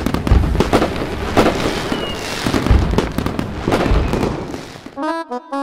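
Firework bursts: a series of sharp bangs over continuous crackling, with a short falling whistle about two seconds in, fading out near the end. A short jingle of quick chiming notes starts in the last half second.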